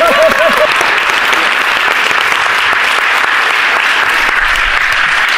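Theatre audience applauding loudly and steadily.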